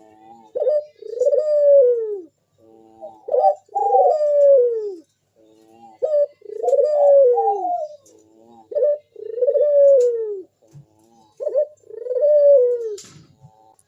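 A puter (Barbary dove) cooing in a steady, repeated song: short clipped notes, each followed by a long coo about a second long that slides down in pitch, about six times.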